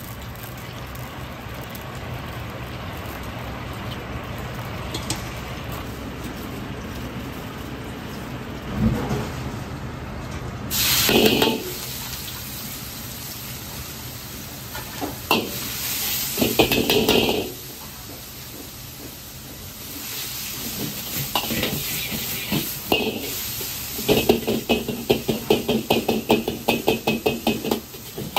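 Oil bubbling in a wok over a gas burner, with a few louder bursts of sizzle and clatter in the middle. Near the end a ladle scrapes and knocks against the carbon-steel wok in a quick, steady rhythm, about three to four strokes a second, as shredded ginger is stir-fried.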